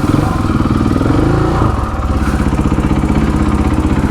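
Motorcycle engine running close by: the revs lift and waver a little over the first couple of seconds, then settle into a steady, even idle.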